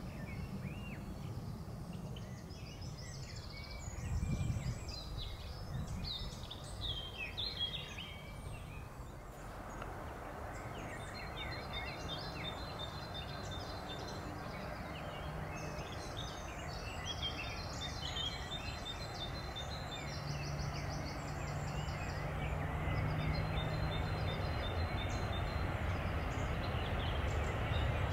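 Small birds chirping and trilling over a low rumble, while the noise of an approaching jet airliner grows steadily louder through the second half.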